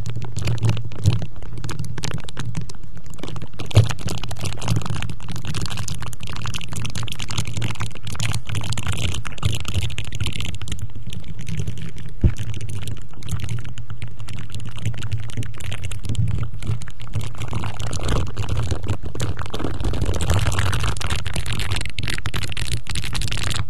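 Close-miked ASMR 'face massage': objects rubbed and tapped against the microphone, a dense run of scratching and small clicks over a steady low rumble, with a few sharper taps.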